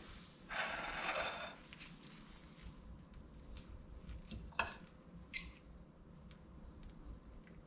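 Metal knife and fork clinking and scraping on a ceramic plate while cutting pieces of fried cauliflower, with a sharp clink about four and a half seconds in and another about a second later. A brief rustle near the start.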